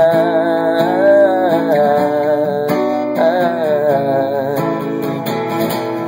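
A man singing drawn-out, wavering notes while strumming an acoustic guitar.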